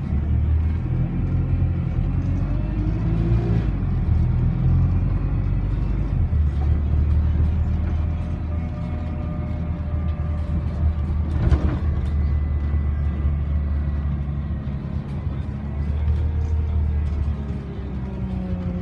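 Alexander Dennis Enviro400 double-decker bus under way, heard from inside the passenger saloon: the engine and drivetrain run with a low drone that rises and falls as the bus pulls and changes gear. A single sharp knock about halfway through is the loudest moment.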